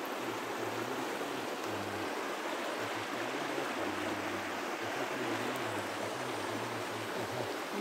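Shallow river of clear water running over rocks, a steady rushing babble.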